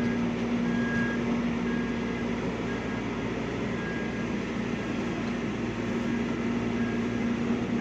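Steady mechanical hum with a short high beep repeating about once a second.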